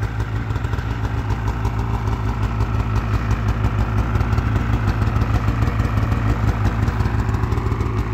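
Polaris 850 Patriot two-stroke twin snowmobile engine idling steadily, with a rapid, even beat.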